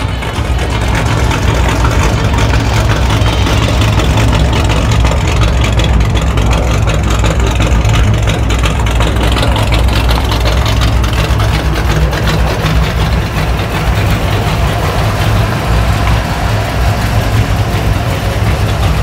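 Wind buffeting the microphone, a loud, steady low rumble from a 25 to 30 mph breeze.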